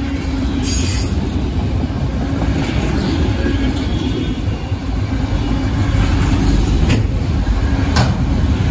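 Freight train of autorack cars rolling past, a steady loud rumble of steel wheels on the rails with a few sharp clacks, two of them near the end.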